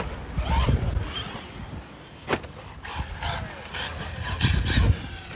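Brushless HSP Brontosaurus RC car running on skatepark concrete, its sound surging and fading, with a sharp knock a little over two seconds in.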